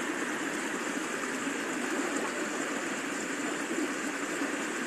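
Shallow water spilling over a low concrete weir step in a channel: a steady rushing.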